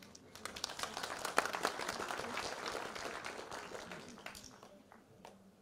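Audience applauding, building up within the first second and dying away over the next four seconds.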